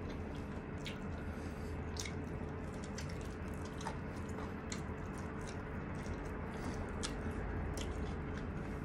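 Close-up eating sounds: a person biting and chewing grilled chicken held in the hands, with many short wet clicks from the mouth scattered throughout. A steady low hum runs underneath.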